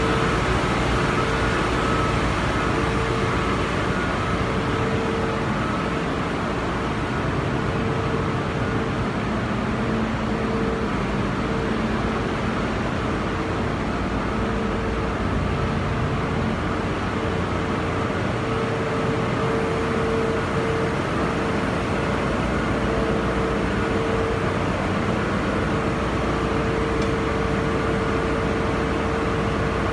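Ship's engine-room machinery running: a loud, steady mechanical din with a constant mid-pitched hum through it.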